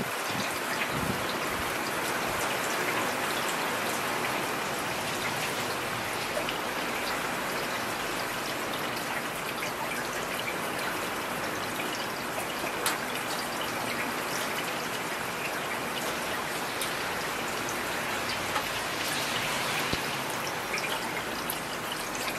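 Heavy rain falling steadily: an even hiss with scattered sharper ticks of drops striking close by.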